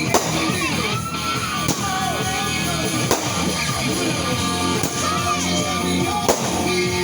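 Rock music with a singing voice and guitar, with sharp bangs cutting through about every second and a half.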